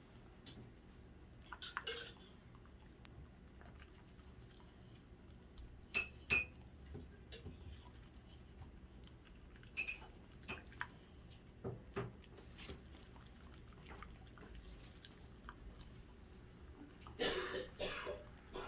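Dachshund eating from a dish: scattered clinks against the dish, two sharp ringing ones about six seconds in, and a denser run of eating sounds near the end.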